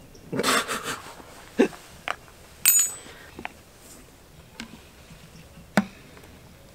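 Handling of a 5-gallon plastic paint pail: a scatter of plastic knocks and clicks, with a short metallic clink about two and a half seconds in as the small metal opener tool and the spout cap land on gravel. Further single clicks follow as the pail is lifted by its wire handle and tipped to pour.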